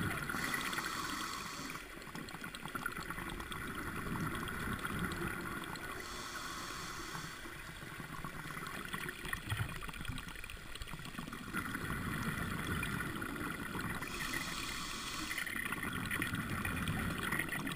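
Muffled underwater sound heard through a diving camera's housing: water movement and gurgling, swelling and fading every several seconds.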